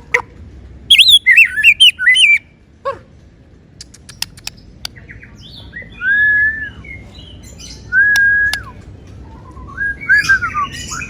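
A songbird calling. It gives a quick run of chirps in the first couple of seconds, then a few sharp ticks, then two long, even whistles a couple of seconds apart, and ends with a twittering burst.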